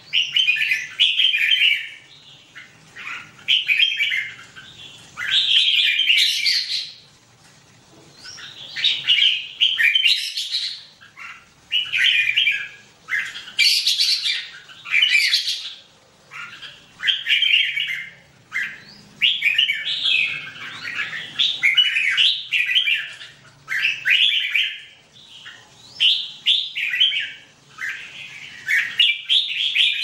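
Red-whiskered bulbuls singing: short phrases about a second long, repeated every second or two with brief pauses between them.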